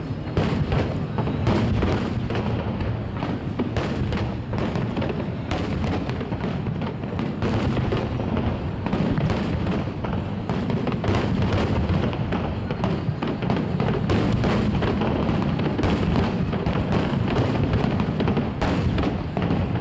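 Fireworks shells bursting in quick succession, many overlapping bangs, with music playing along.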